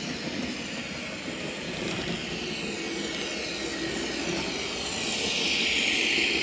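H0-scale model train, a red regional railcar, running along the layout's track: a steady motor and wheel hum with hiss that grows louder as it passes close, about five seconds in.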